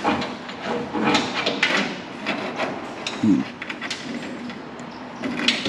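Scattered knocks, clicks and clatter of tools and parts being handled while mechanics work on a race car, with brief snatches of talk.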